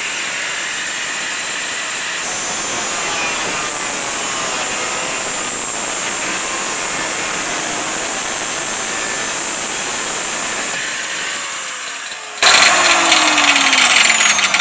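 Angle grinder with a cutting disc running steadily as it cuts through a car's rusted steel rocker panel. Near the end the grinder winds down with a falling whine, and a sudden, louder rough scraping starts as the cut-away panel section is pulled free.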